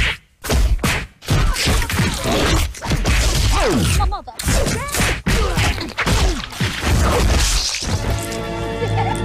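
Foley fight effects made with fresh vegetables: a rapid string of whacks, cracks and wet squelches as stalks of celery are snapped and twisted and a tomato is crushed in the hand. Music comes in near the end.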